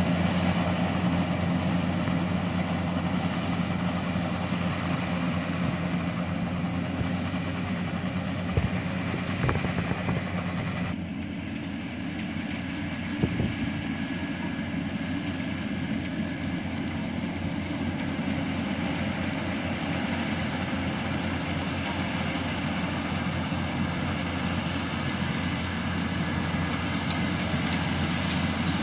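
Yanmar rice combine harvester running steadily as it cuts and threshes rice, a steady engine-and-machinery drone with a few short knocks. About eleven seconds in the sound changes abruptly to a second combine working farther off.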